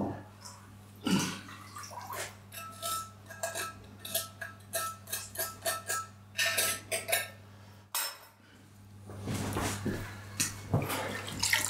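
A quick series of clinks and knocks from hard objects being handled, some ringing briefly, over a steady low hum. After a short break a little past the middle, a rougher rustling with a few more knocks.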